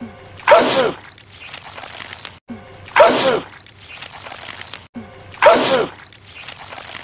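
A man sneezing loudly three times, about two and a half seconds apart: the same sneeze repeated, each a sharp burst whose voiced 'choo' falls in pitch.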